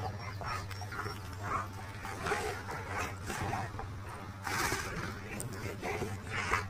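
A kuvasz and a boerboel puppy making short, irregular play noises while wrestling, over a steady low hum.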